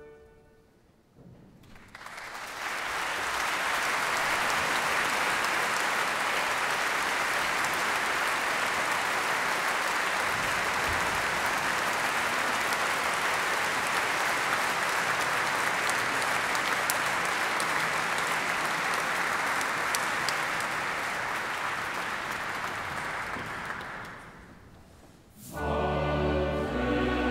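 Concert audience applauding. The applause starts about two seconds in, holds steady, and dies away after about twenty seconds. Near the end the orchestra begins playing.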